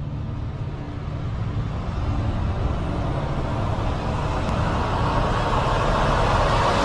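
A low rumble that swells steadily, with a hissing noise building up louder over the last few seconds.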